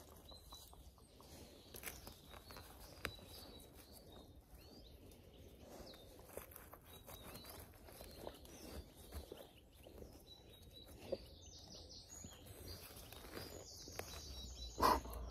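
Hand trowel digging and scraping in woodland soil and leaf litter, with small crackles and rustles throughout and small birds chirping faintly. Near the end comes one sharp, louder knock as the trowel is driven into the ground.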